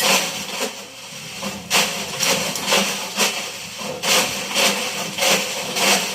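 Electrolux washing machine running, its drum turning with a steady motor hum while the objects inside tumble and knock hard against the drum over and over.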